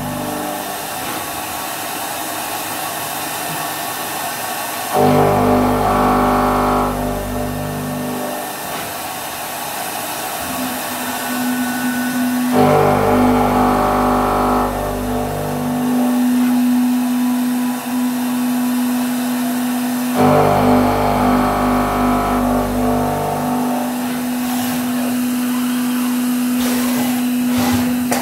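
Five-axis CNC vertical machining centre milling a cutting-tool blank under coolant: the spindle and cutter run continuously, with a louder, ringing cutting pass of about three and a half seconds coming round about every seven and a half seconds, and a steady whine holding from about a third of the way in.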